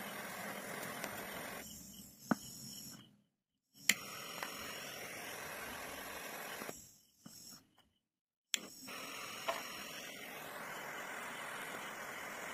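Gas torch flame hissing steadily, broken twice by a brief total silence, with sharp clicks beside the gaps.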